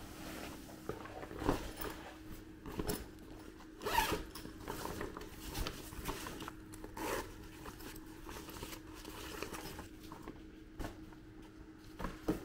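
A nylon Skechers duffle bag being handled and unzipped: fabric rustling and zipper pulls in irregular bursts, with a few sharper scrapes about a second and a half, four and seven seconds in, and again near the end.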